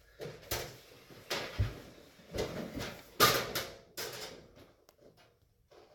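A run of irregular scrapes and knocks, about five in all, from hands working stiff Romex cable at a metal switch box. They die away near the end.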